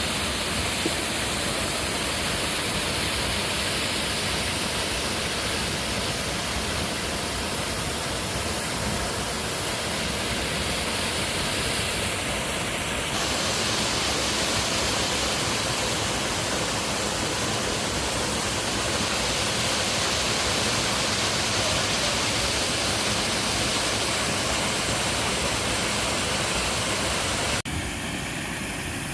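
Waterfall pouring into a mountain stream: a steady, loud rush of falling water. The water sound changes slightly partway through and turns quieter and different near the end, as the recording switches to another spot along the falls.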